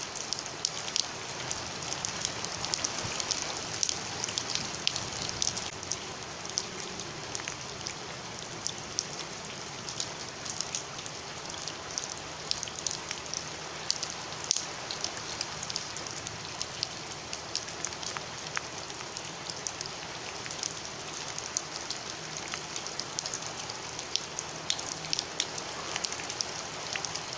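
Heavy rain falling on paved ground covered in a thin layer of standing water: a steady hiss with many sharp drop splashes and patters throughout.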